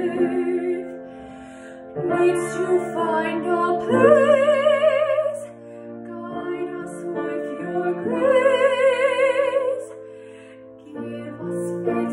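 A woman singing a slow solo over sustained instrumental accompaniment, holding two long notes with a wide vibrato about four and eight seconds in.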